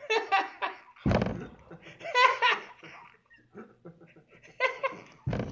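A man laughing in several bursts, with two short, dull thumps about a second in and near the end.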